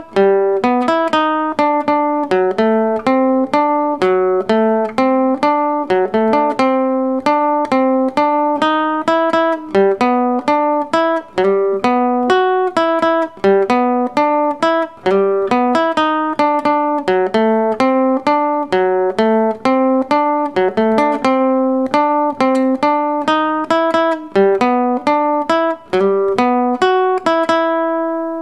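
Nylon-string classical guitar playing a syncopated tumbao pattern of single plucked notes, a few a second, ending on a held note that rings out.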